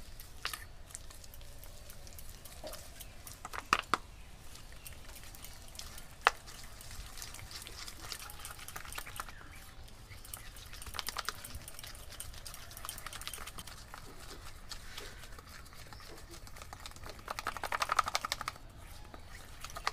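A fork beating a thick mix of biscuit cream, butter and powdered sugar in a stainless steel bowl: soft scraping with quick clinks of the fork against the metal. There are two sharper clinks in the first third, and a fast run of clinks near the end.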